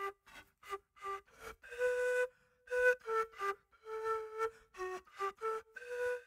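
Panpipes played solo: a tune of short, breathy, separately blown notes within a narrow range, with brief gaps between them and a few notes held longer.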